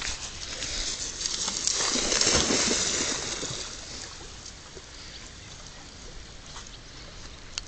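Water splashing as a pit bull plunges in and paddles out after a thrown stick. The splashing swells about a second in, is loudest around two and a half seconds, and dies down to a faint wash.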